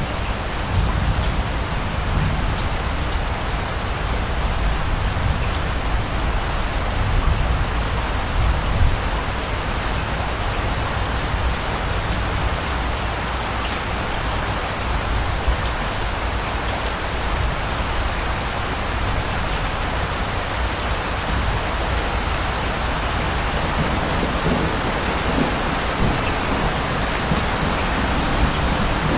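Steady rain falling, with low rumbles of distant thunder that are heavier in the first few seconds and build again near the end.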